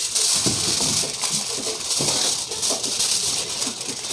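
Aluminium foil crinkling and rustling as a sheet is pulled off the roll and handled, with scattered small crackles.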